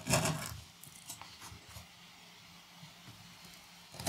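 A brief rustle of handling noise as things are moved about, then a few faint ticks and quiet room tone.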